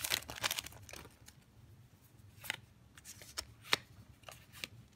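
Foil booster-pack wrapper crinkling for about the first second, then a few soft clicks and slides of trading cards being flipped through by hand.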